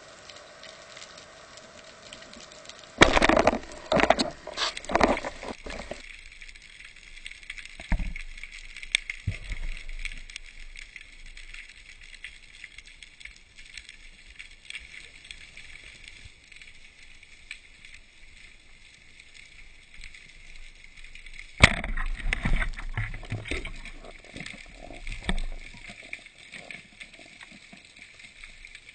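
Underwater sound picked up by a diver's camera: a steady faint crackling hiss. Two bouts of loud water noise come about three seconds in and again about twenty-two seconds in.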